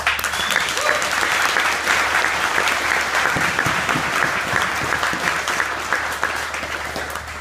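Crowd applauding, starting suddenly and dying away near the end.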